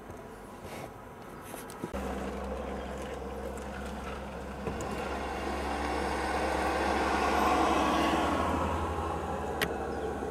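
Motor vehicle sound: a steady low engine hum starts abruptly about two seconds in. A passing vehicle's noise swells to a peak near eight seconds and then eases off. A single sharp click comes shortly before the end.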